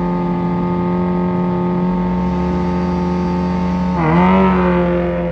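Suzuki Hayabusa 1340 inline-four and Kawasaki Z400 parallel-twin engines held at steady high revs on the drag-strip start line, then launching about four seconds in: the pitch dips as the clutches bite, then climbs as they accelerate away.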